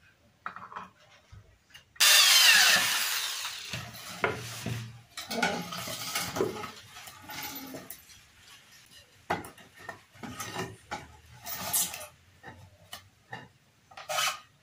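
A corded electric drill runs in one short loud burst about two seconds in, drilling into the wooden frame. After it come repeated knocks, scrapes and rubs of wooden boards being handled and shifted on a tiled floor.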